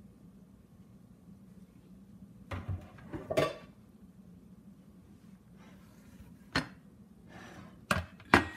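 A few irregular sharp clicks and knocks of cookware being handled, over a steady low hum; the loudest knock comes near the end.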